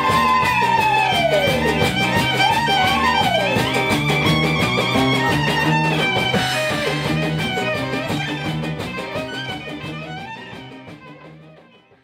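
A band playing lively music: a violin melody with sliding notes over a steady, rhythmic guitar accompaniment. The music fades out over the last few seconds.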